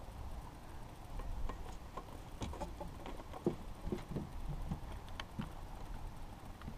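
Scattered light clicks and taps of hands and pliers working hooks out of a small largemouth bass, over a steady low rumble.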